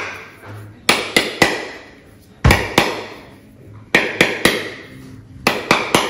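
Claw hammer striking a whole coconut's shell to crack it open. Sharp knocks come in short groups of two or three, about eleven in all.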